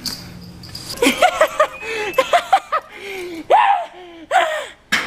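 A person laughing: a quick run of short, high-pitched snickering bursts starting about a second in, followed by a few longer, falling laughs.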